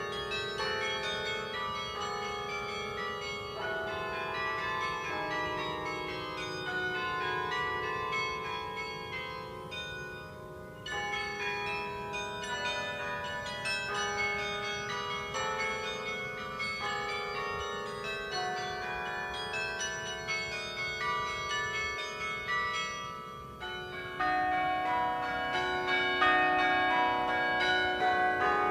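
Tower carillon being played: a tune of struck bell notes, each ringing on under the next. The playing dips briefly about ten seconds in and again near the end, then comes back louder for the last few seconds.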